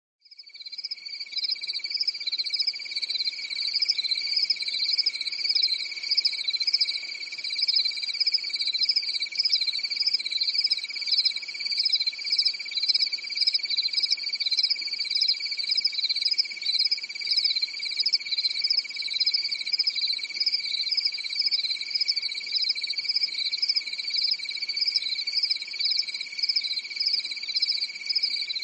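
Crickets chirping: a steady high trill with a quick pulsing chirp over it, fading in over the first second and then going on evenly.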